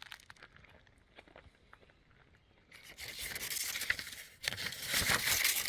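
Rustling, scraping handling noise that starts about three seconds in and comes in two stretches, with small clicks through it.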